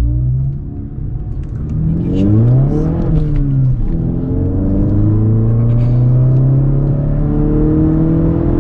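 A 2017 Mazda 3's 2.5-litre four-cylinder running through a Borla S-Type exhaust while the car accelerates. The revs climb about two seconds in and drop sharply near four seconds at a gear change. After that the note holds steady and rises slowly.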